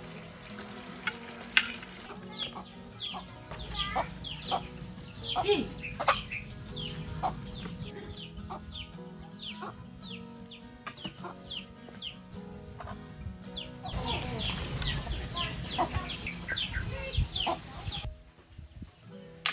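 Rice noodles being stir-fried and tossed in a steel wok, sizzling, with metal tongs clicking against the pan. Over it, short high peeps falling in pitch, repeated about twice a second, from chickens.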